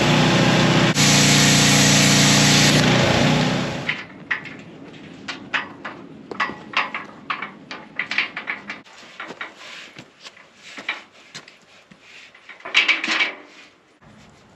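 Handheld plasma cutter cutting through a steel gate hinge: a loud, steady hiss and buzz that cuts off about four seconds in. After that, scattered light clanks and knocks of steel gate parts being handled.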